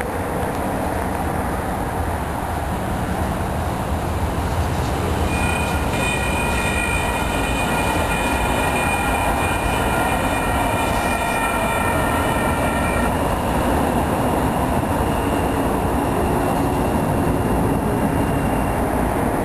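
Union Pacific train approaching from a distance: a steady rumble, with a cluster of high steady tones sounding for about eight seconds, starting about five seconds in.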